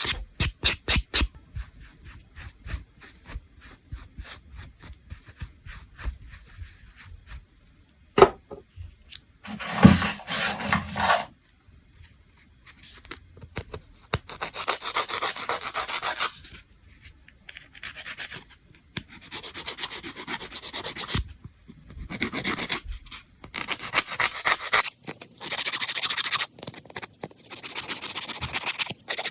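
A nail file rubbed across fingernails: a run of quick short strokes at the start, then longer filing passes with pauses between them.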